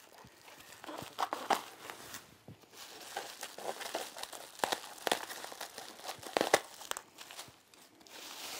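Plastic bubble wrap crinkling and rustling as it is pulled and peeled off a padded case, with irregular crackles; the sharpest come about a second and a half in, around five seconds in and around six and a half seconds in.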